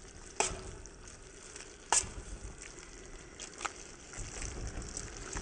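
Spinach stir-fry sizzling in a stainless steel kadai as a metal spatula stirs it. The spatula scrapes and knocks sharply against the pan about half a second in and again at two seconds, then more lightly a little later.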